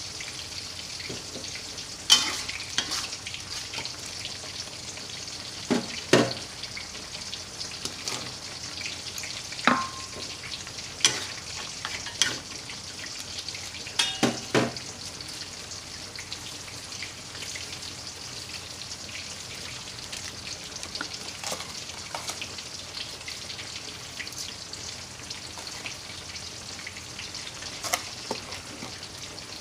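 Ingredients for rica jengkol frying in hot oil in a pan, a steady sizzle that starts suddenly at the beginning. A utensil scrapes and knocks against the pan every few seconds as the food is stirred, and one knock leaves a brief metallic ring.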